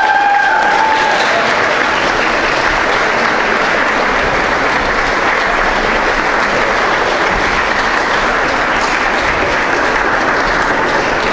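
Audience applauding: steady, dense clapping from a large crowd of hands, holding at an even level throughout.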